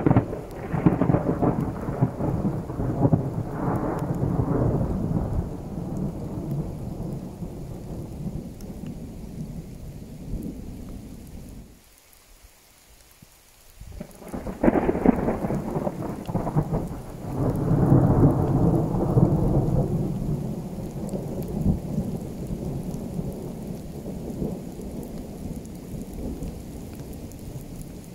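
Rolling thunder over falling rain. A long rumble fades, the sound drops away almost completely for about two seconds, then a fresh peal breaks out about fifteen seconds in, swells again a few seconds later and slowly dies away.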